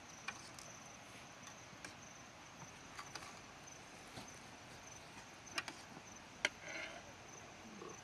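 Metal spoons clinking against bowls and plates as food is served, several short sharp clinks with the loudest about six and a half seconds in. Behind them an insect chirps steadily in a fast, even pulse.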